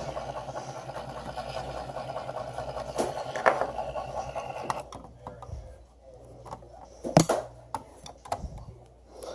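Economizer damper actuator motor running steadily as it drives the damper, stopping abruptly about five seconds in, followed by a couple of sharp clicks.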